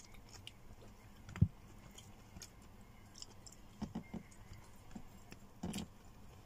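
Close-up eating sounds of someone eating with their hands: quiet chewing and small mouth clicks, with one dull thump about a second and a half in and a few softer knocks as fingers pick food from a plastic container near the end.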